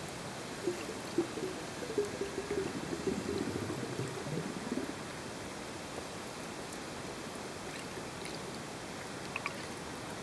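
Steady underwater hiss picked up by a submerged camera, with a low wavering pitched sound for a few seconds near the start and a few faint ticks near the end.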